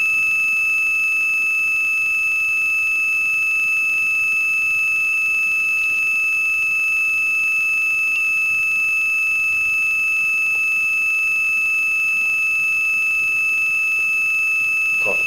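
Heart monitor's continuous flatline tone: one steady high beep held without a break, the sign that the heart has stopped (asystole).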